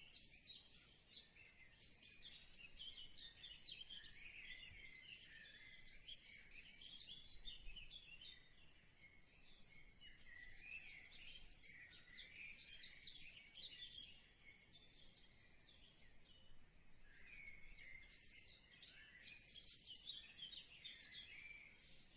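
Faint chirping of many small birds: a dense overlap of short, high calls that eases off briefly about ten seconds in and again around sixteen seconds in.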